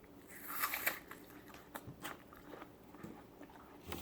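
A person eating close to the microphone: chewing with wet mouth clicks and smacks, loudest in a noisy stretch about half a second in.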